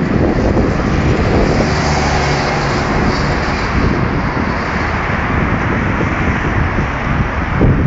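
Loud, steady street noise of road traffic, with a faint engine hum about two seconds in.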